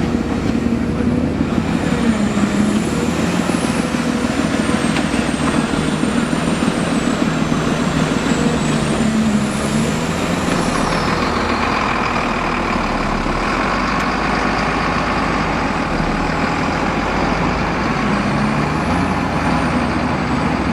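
Heavy diesel machine running steadily, with a whine whose pitch slowly rises and falls.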